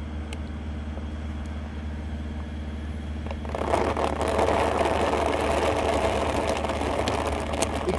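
Air compressor running with a steady low hum; about three and a half seconds in, a loud steady rush of air starts as the regulator is opened up and compressed air flows in to inflate the pipe-patch packer.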